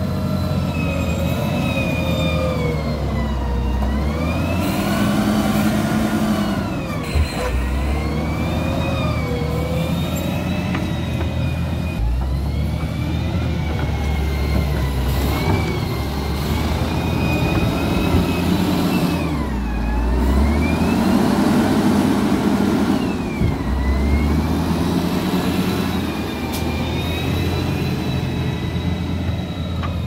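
SD300 wheel loader's diesel engine and hydraulics working under load: a steady low drone with a whine that sags in pitch and climbs back about four times as the bucket pushes and lifts dirt.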